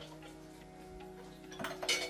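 Background music with held tones, over a scatter of light clicks and taps, with a louder cluster of clicks near the end.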